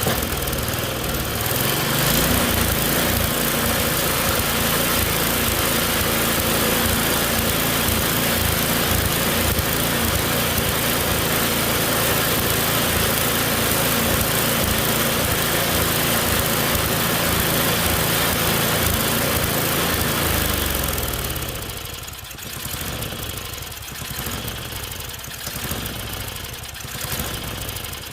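Snowblower's Tecumseh single-cylinder engine running steadily at speed, then dropping lower about three quarters of the way through and running unevenly, rising and falling. It surges, which the owner blames on the carburettor.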